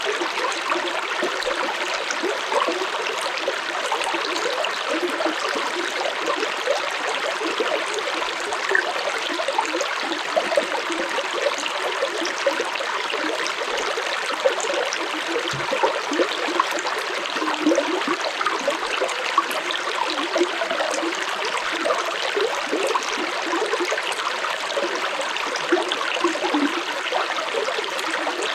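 Stream of water flowing and splashing over rocks, a steady babble dotted with small splashes and gurgles.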